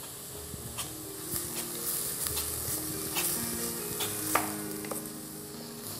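Chef's knife cutting raw veal into cubes on a plastic cutting board: a handful of light, sharp knocks of the blade on the board over a steady faint hiss.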